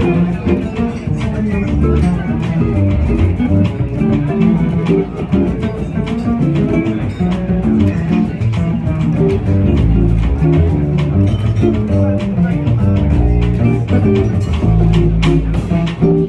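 Jazz played on an archtop guitar, a steady run of plucked notes and chords, with low bass notes underneath.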